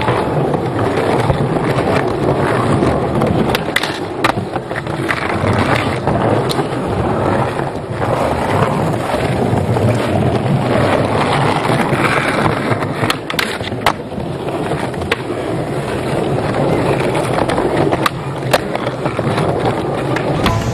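Skateboard wheels rolling steadily over smooth plaza paving, close up, with sharp clacks of the board now and then as the skater pops and lands tricks.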